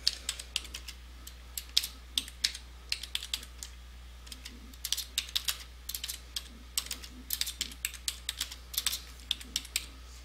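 Typing on a computer keyboard: irregular keystroke clicks in short runs, with a brief pause around four seconds in.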